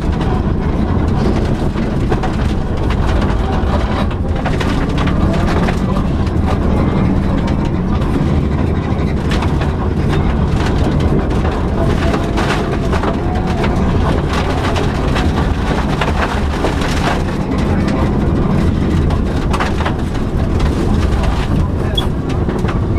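Subaru Impreza rally car's flat-four engine running hard at speed, with steady road noise and scattered knocks and clatters throughout.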